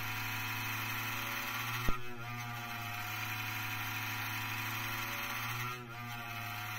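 Cooling fan of a Mydel MP304 Mark II power supply running under transmit load, a steady pitched drone with many overtones that sounds absolutely terrible, with one click about two seconds in, recorded on a mobile phone. The fan feels unbalanced and loose when turned by hand, probably with more play than there should be.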